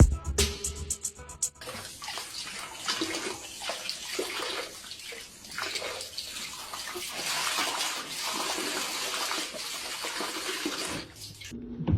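Water splashing and running in a bathtub, an uneven wash of sound that cuts off suddenly near the end. A music track stops about a second and a half in.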